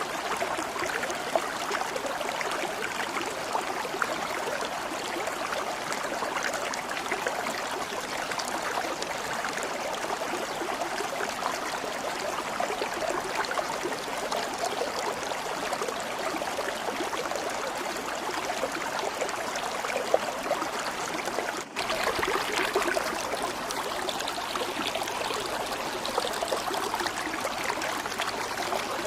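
Stream water flowing and babbling steadily over stones, with a momentary break about two-thirds of the way through where the recording cuts and resumes.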